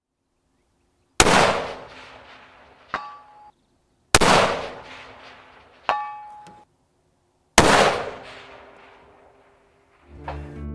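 Three rifle shots from a Weatherby Mark V Carbonmark Elite in 6.5 Creedmoor, spaced a few seconds apart, each trailing off over about two seconds. After each of the first two shots, the fainter ring of the steel target being hit arrives nearly two seconds later. Acoustic guitar music comes in near the end.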